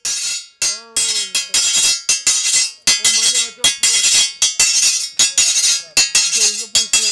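Music: a rhythmic beat of sharp, bright metallic strikes, about three to four a second, with short voice fragments over it.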